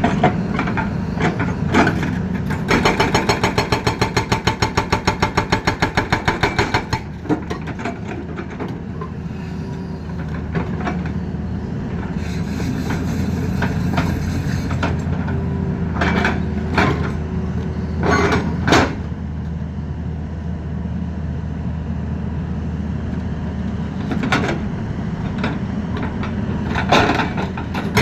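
Hitachi Zaxis excavator's diesel engine running steadily, with a hydraulic breaker hammering rapidly at about five blows a second for some four seconds near the start. Scattered sharp knocks follow.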